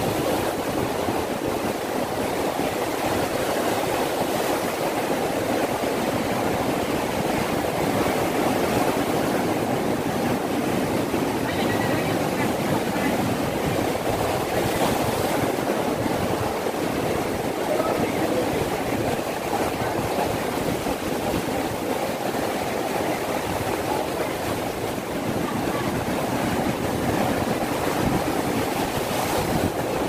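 Sea surf: small waves breaking and washing up the shore in a steady rush of water noise.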